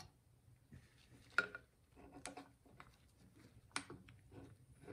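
Light metallic clinks and taps of hand tools against the parts of a split-open Honda EU2000i engine as they are handled, a few sharp ones among softer handling noise. The sharpest clink comes about a second and a half in, and others come a little after two seconds and near four seconds.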